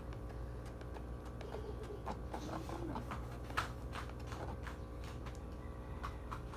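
Light, scattered clicks and taps of a spoon or spatula stirring pancake batter in a plastic bowl, over a steady low hum.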